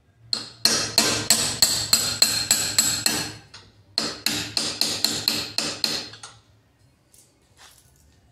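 Hammer striking the steel pin of a weld-on flag hinge clamped in a bench vise, driving the pin through the knuckle to reverse it: quick ringing metal-on-metal blows, three or four a second, in two runs with a short pause between them. A few faint knocks follow near the end.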